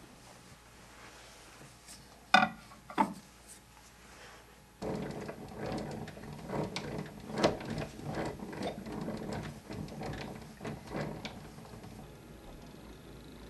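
Two sharp clicks, then the hand crank of an antique Columbia Grafonola phonograph winding its spring motor: a dense run of ratcheting clicks and strokes lasting about six seconds before it tails off.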